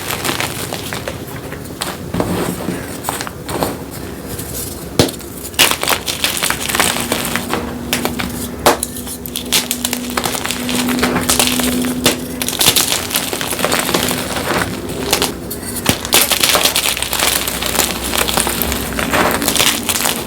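Hard, glassy blocks of gym chalk being crushed and crumbled by hand: a dense, crunchy crackle broken by sharp snaps several times.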